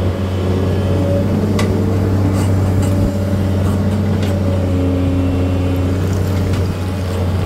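A machine's engine running steadily under varying load, with a few short clicks and knocks over it.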